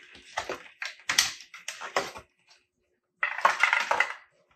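Packaging handling: a foam packing insert pulled out of a cardboard box, with a run of sharp clicks, creaks and scrapes. It goes quiet for about a second, then a burst of rustling comes near the end as the cables in the box are handled.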